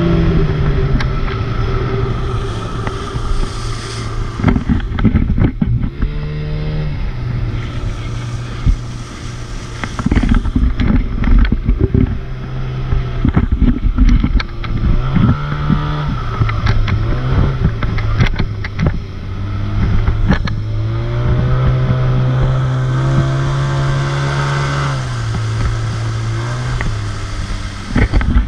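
Boat motor running under way, its engine speed stepping up and down several times, with scattered sharp knocks.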